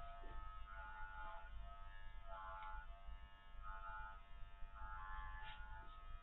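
Electric dog clippers running with a steady buzz, their whine swelling and easing every second or so as the blade cuts through a Spanish water dog's thick curly coat.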